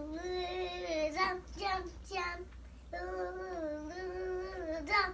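A young girl singing, holding long notes that waver in pitch, with a few short syllables between two sung phrases.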